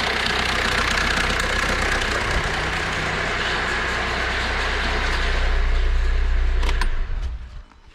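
Kia Rio 1.5 CRDi diesel engine idling with the rattle of a badly worn, stretched timing chain that vibrates in its case. It stops about seven seconds in, just after a couple of sharp clicks.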